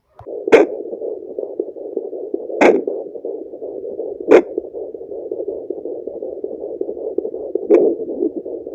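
Handheld fetal Doppler's loudspeaker giving a steady, muffled hiss as its probe picks up sound from the belly. Four sharp clicks or knocks break in, the loudest about half a second in.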